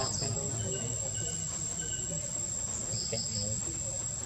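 Insects trilling steadily on one high, unchanging tone, with short high chirps near the start and again about three seconds in.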